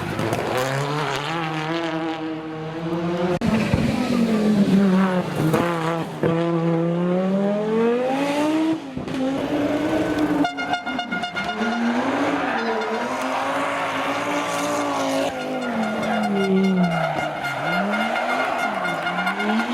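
Historic rally car engine on a stage, its revs repeatedly climbing and dropping with gear changes and throttle lifts through corners.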